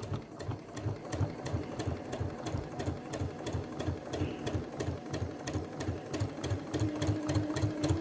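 Electric sewing machine stitching a straight seam through two layers of cotton bias strip at an even speed, its needle clacking in a steady rhythm of about five stitches a second. A low steady hum joins in near the end.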